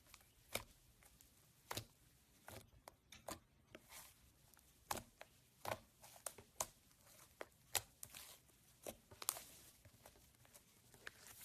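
Slime being mixed and pressed by hand, giving irregular sharp, sticky clicks and pops about once a second.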